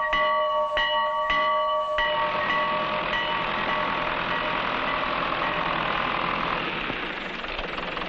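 A farm bell rung repeatedly to call someone in from the field, struck about twice a second four times and then stopping. A steady engine-like noise takes over and eases off slightly near the end.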